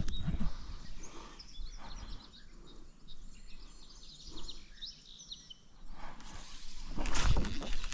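A songbird chirping in quick, short, high notes over quiet outdoor background, followed by a louder rushing noise near the end.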